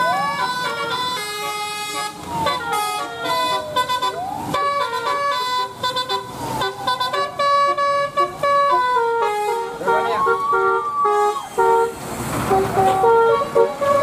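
Bus 'telolet' horn, a set of air-horn trumpets driven by a melody module, playing a quick tune of stepped notes mixed with repeated falling and rising swoops.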